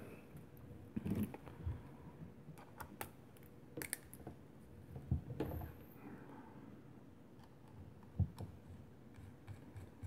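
Irregular light clicks and handling noise from a handheld two-way radio and its rubber antenna being handled and fitted together.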